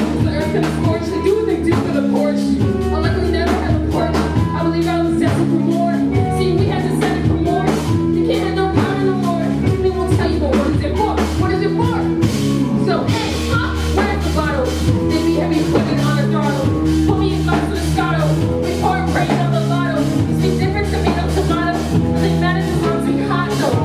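Music with singing over a steady drum beat, bass and guitar.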